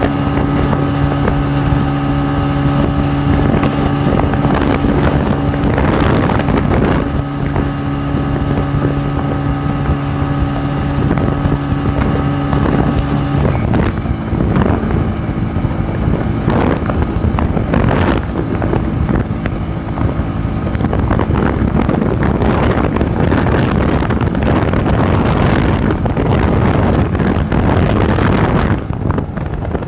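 Modified 100cc motorcycle engine running at speed, with wind buffeting the microphone. The engine note holds steady, then changes about halfway through as the wind rush grows stronger.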